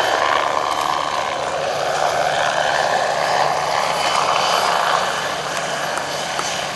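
MBB Bo 105 helicopter flying past: the rush of its rotor and twin turboshaft engines, with a faint steady high whine. It fades a little near the end as the helicopter moves away.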